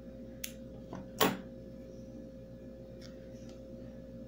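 Scissors cutting crochet yarn and being handled: a short sharp click about half a second in, then a louder knock a little after a second, over a faint steady hum.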